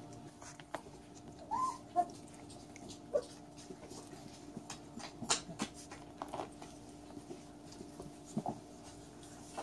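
Catahoula Leopard puppies playing on an adult dog: a short puppy whine about a second and a half in, with snuffling, scuffling and small clicks of movement on a blanket, over a steady low hum.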